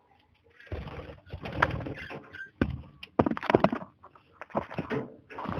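Rustling, scraping and knocks from hands working in a budgie breeding cage, in bursts with deep thuds starting about a second in.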